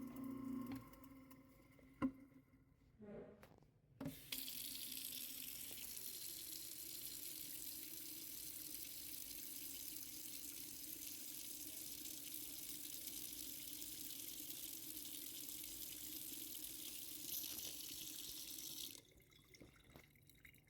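Kitchen faucet running water down the sink drain into a freshly unjammed garbage disposal to flush it, a steady rush that starts with a click about four seconds in and stops sharply about fifteen seconds later.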